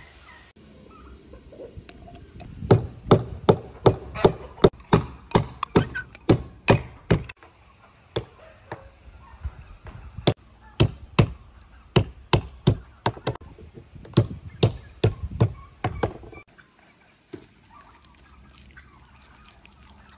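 Rapid sharp knocks, about three a second, in two long runs with a pause between: a stick beating the branches of a walnut tree to knock the nuts down.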